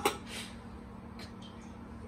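Sharp metal clinks at the start as the whistle weight of a Pigeon stainless-steel pressure cooker is handled on the lid's vent pipe, then a few faint taps.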